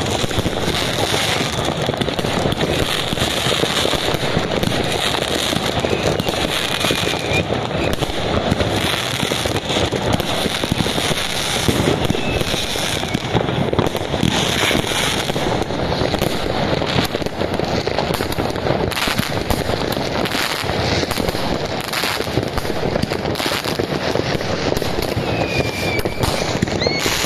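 Dense New Year's Eve fireworks: many rockets and firecrackers bursting and crackling without pause, one bang overlapping the next.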